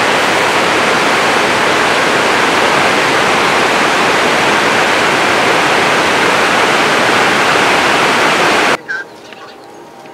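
A loud, steady rushing noise, even and without any pattern, that cuts off suddenly near the end.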